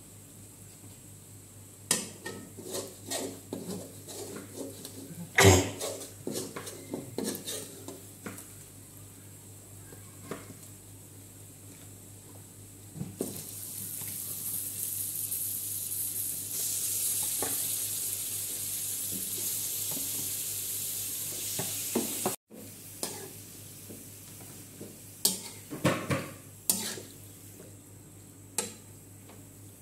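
Metal spatula clinking and scraping against a metal wok, with one loud knock. About thirteen seconds in, raw beef goes into the hot spiced oil and sizzles steadily for about nine seconds, then the sizzle cuts off suddenly. Spatula clinks return as the beef slices are stirred.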